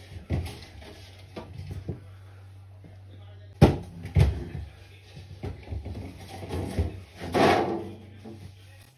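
Plastic refrigerator drawers being slid out and handled: several sharp plastic knocks and clatters, and a longer sliding rasp about seven and a half seconds in.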